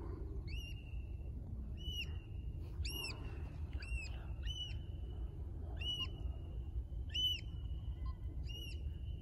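A bird calling over and over: about a dozen short, arched, whistled notes, irregularly spaced, roughly one or two a second. A low steady rumble sits underneath.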